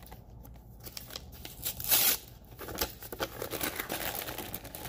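Paper crinkling and tearing as an envelope and greeting card are handled, in many short rustles with the loudest about two seconds in.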